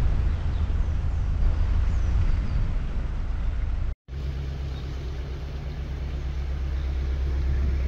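Narrowboat's engine running steadily, a low rumble with a constant pitch. The sound cuts out abruptly for a moment about four seconds in, then carries on unchanged.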